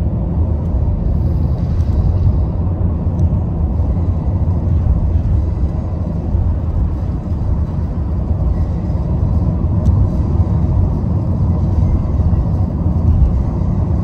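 Steady low road rumble heard from inside a car cruising at constant speed on an expressway.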